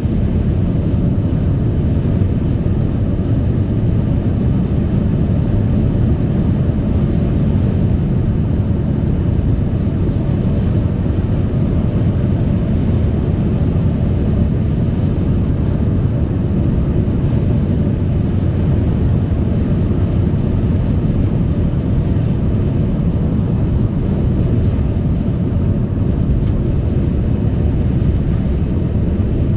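Steady low rumble of a car on the move: tyre and road noise with wind, heard from inside the cabin.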